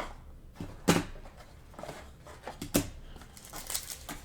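Trading cards and packs being handled on a table: two sharp clicks, about a second in and just before three seconds, among lighter taps and a brief rustle of cards or wrapper near the end.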